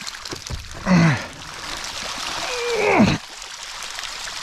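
A man grunting and groaning with effort as he strains to lift a wire-mesh fish trap heavy with fish. There is a short grunt about a second in and a longer groan that swells and then drops in pitch about three seconds in, over water trickling and splashing off the trap.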